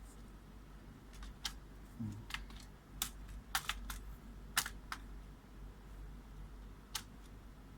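Scattered sharp plastic clicks from handling a Dell Latitude 5490 laptop, about ten at uneven intervals.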